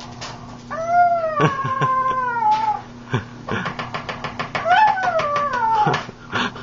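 Pug whining in two long, high cries that slide down in pitch, the begging noise she makes while her supper is being made. Short clicks sound between and under the cries.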